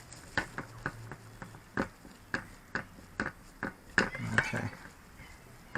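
Light, irregular clicks and taps of hand tools against hard objects while resin and fibreglass are worked on a quadcopter shell, about two or three a second.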